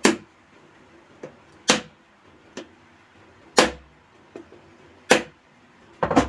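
Wooden rolling pin striking the hard, woody shell of a bael (wood apple) fruit, cracking it open. There are five sharp knocks about every one and a half seconds, with lighter taps between them and a quick double knock near the end.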